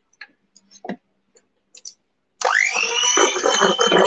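A spatula tapping and scraping lightly against a stainless steel mixing bowl in a few small clicks. Then, a little over halfway through, an electric hand mixer is switched on: its motor whine rises quickly to a steady pitch as the beaters work an egg into the creamed batter.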